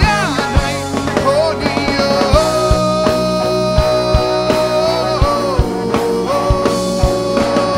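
Rock band playing live: a male singer holds long sung notes over acoustic and electric guitar, bass guitar and a drum kit keeping a steady beat.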